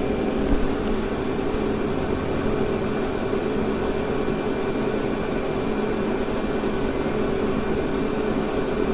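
Steady background hum and hiss with a few constant tones, unchanging throughout, and a faint click about half a second in.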